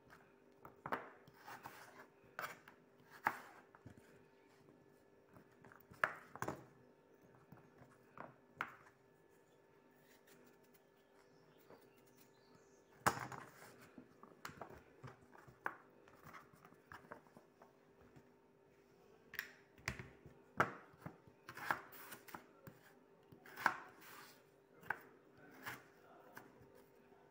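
A kitchen knife slicing raw potatoes into wedges on a plastic cutting board, the blade knocking on the board at irregular intervals, with pauses of a few seconds between runs of cuts.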